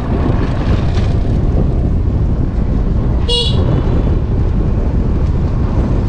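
A vehicle horn gives one short toot a little over three seconds in, over a steady low rumble of wind buffeting the microphone while riding.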